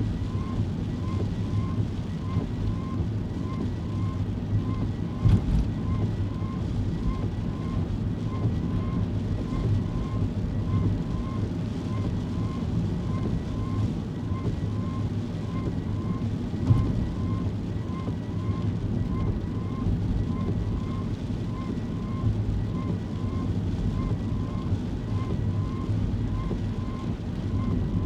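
Kei car cabin noise: a steady low hum from the engine and road. Over it runs a faint, evenly repeating electronic tick, about one and a half per second.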